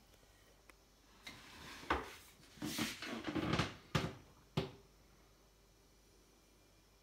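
A short flurry of rustling and clatter with a few sharp knocks, the loudest near the middle and one more a little later, lasting about three seconds.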